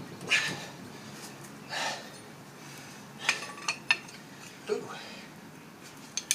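Metal clinks and short scrapes from a brake caliper and hand tools being worked, about half a dozen separate knocks at irregular intervals as the caliper is pried and its piston pushed in.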